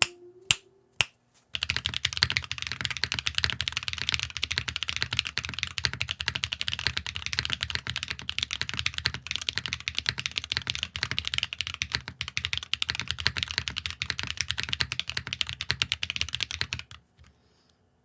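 Fast typing on a mechanical keyboard fitted with KTechs S2v2 Snow long-pole tactile switches, run stock with very light factory lube, a clacky sound. A few single key presses come first, then a dense, continuous run of keystrokes that stops about a second before the end.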